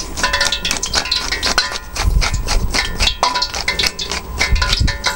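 Pepper being ground over a bowl, a run of many irregular sharp clicks and cracks.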